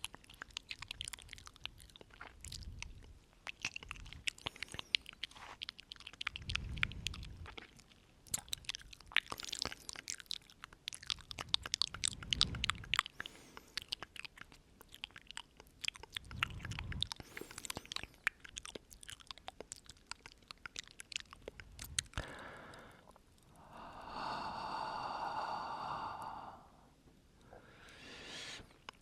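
Close-up ASMR mouth sounds: a dense run of wet mouth clicks, smacks and tongue pops into the microphone, then slow breaths and a long breathy exhale near the end.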